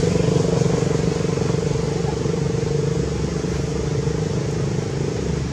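Steady motor hum with a held tone that fades out near the end.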